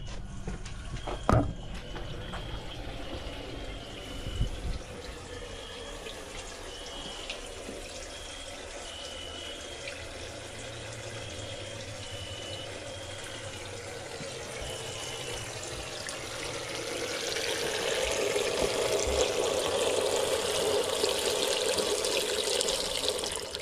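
Water running or pouring steadily, growing louder over the last several seconds. There is a sharp knock about a second in, a smaller thump a few seconds later, and a faint high beep that repeats.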